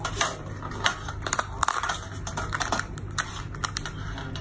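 A crab's top shell being pried off by hand: a run of sharp, irregular cracks and crunches of breaking shell, in several clusters.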